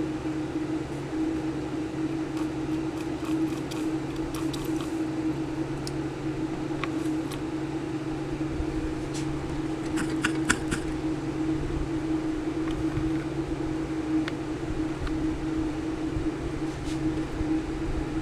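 Steady hum of a running fan motor, with a few faint small ticks, most of them about ten seconds in.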